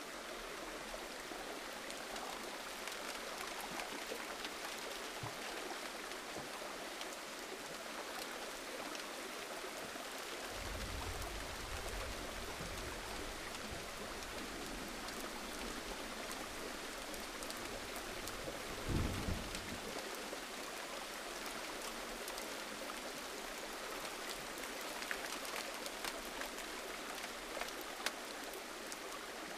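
Gentle rain falling steadily, an even hiss with scattered drops. A low rumble comes in about a third of the way through and fades about two-thirds in, ending with a brief low thud.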